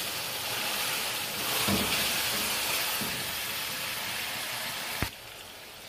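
Chicken and peas sizzling as they fry in an aluminium pot, stirred now and then with a wooden spatula. A sharp click comes about five seconds in, after which the sizzle is quieter.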